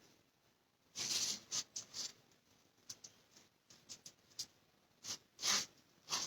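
Table knife spreading mayonnaise on slices of bread: a few short, soft scrapes, in two clusters about a second in and again around five seconds in.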